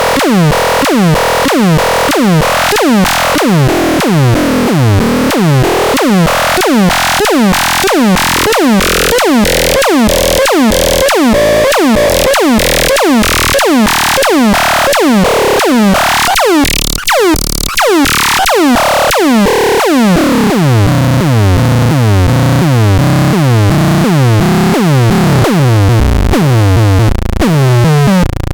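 Electronic synthesizer music: a steady pulse of about two notes a second, each sweeping sharply down in pitch. There is a brief break with a rising sweep in the middle, and a heavier bass part comes in after it.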